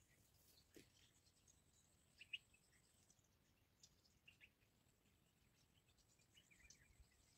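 Near silence: quiet open-air ambience with a few faint, short bird chirps scattered through it.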